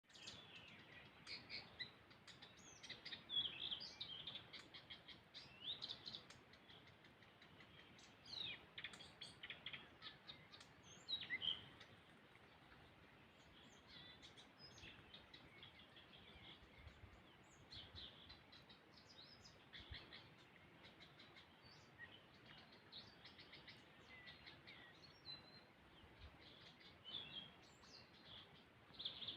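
Several small birds singing faintly: quick chirps and short trills, thick for the first dozen seconds or so, then thinning to scattered calls over a soft background hiss.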